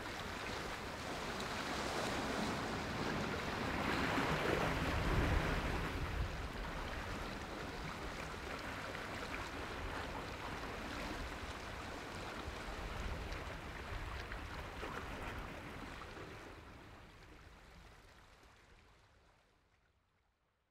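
Small waves washing and lapping in shallow open water, a steady noise that fades out to silence over the last few seconds.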